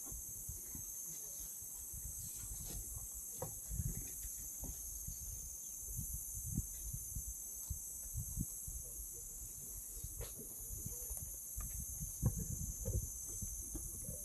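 Steady high-pitched insect chorus, with scattered soft low thumps and rustles, the loudest about twelve seconds in.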